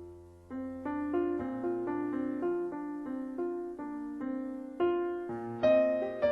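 Background piano music: single notes struck a few per second, each ringing and fading, with a short pause about half a second in.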